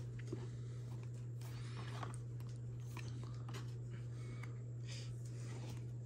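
Faint rustling and light clicks of trading cards being handled and shuffled, over a steady low hum.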